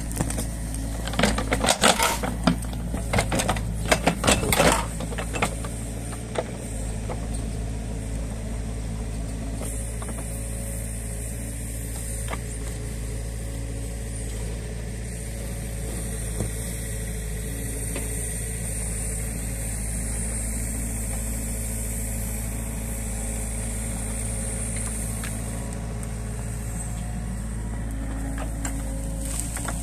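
New Holland Kobelco E50.2 mini excavator's diesel engine running steadily as it digs. During the first five seconds a burst of loud knocks and scrapes from the steel bucket striking soil and roots.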